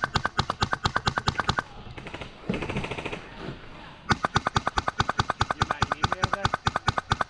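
HPA-powered airsoft Mk18 rifle firing two long strings of rapid, evenly spaced shots, about two and a half seconds apart.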